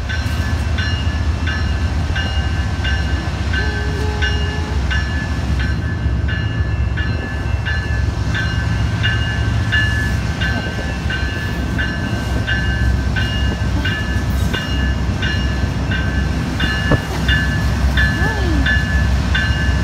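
A railroad crossing bell rings steadily, about two strokes a second, over the deep, steady rumble of an approaching CN diesel freight locomotive.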